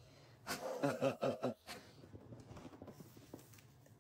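A person's voice, briefly, like a low chuckle or a few mumbled words about half a second in, followed by faint small clicks and rustles.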